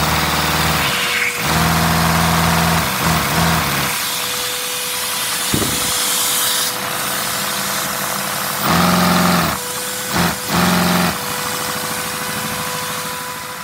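Vacuum cleaner running with a steady whine, its suction driving a Lego vacuum engine (shared-crank-valve inline four) whose cylinders buzz in spells that come and go. A single sharp click about five and a half seconds in.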